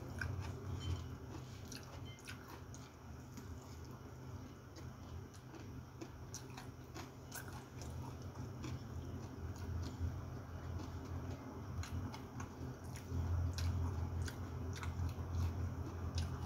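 Close-miked chewing and biting of someone eating, with scattered small clicks and taps. A steady low hum runs underneath.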